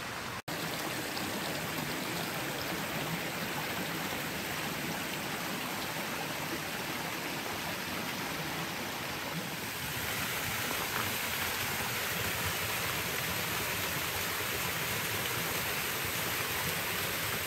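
Steady rush of a shallow mountain stream running over rocks, together with water spilling over a small concrete weir into a pool. It grows a little louder about ten seconds in.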